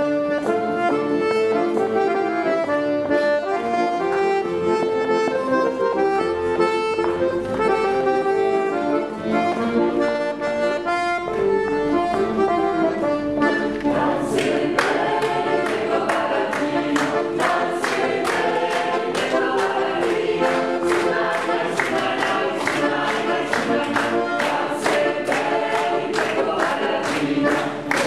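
Small mixed vocal ensemble singing a Croatian song a cappella in held chords of women's and men's voices. About halfway through the singing grows fuller, with a more marked rhythmic pulse.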